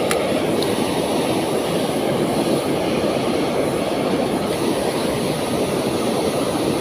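Steady, unbroken rushing of a waterfall, with a faint click or two near the start.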